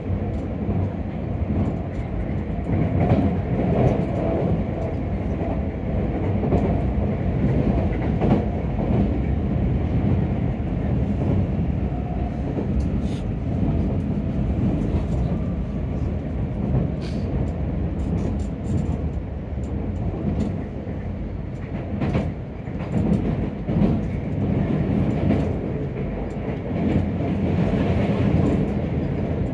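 Keisei Skyliner electric train running at speed, a steady rumble of wheels on the rails with a few sharp clicks scattered through it, heard from inside the carriage.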